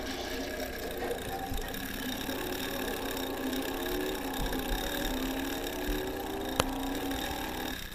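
Small electric motor of a homemade mousetrap-style toy car running, its whine wavering up and down in pitch as it drives over a rough surface. A single sharp click about six and a half seconds in.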